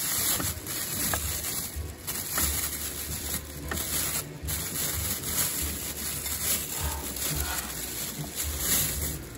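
Thin plastic shopping bag rustling and crinkling unevenly as it is untied and pulled open by hand.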